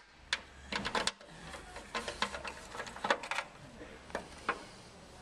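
Hand screwdriver turning a self-tapping screw out of a Land Rover Defender's sheet-metal headlight mounting panel: a string of irregular metallic clicks and scrapes as the tool works the screw.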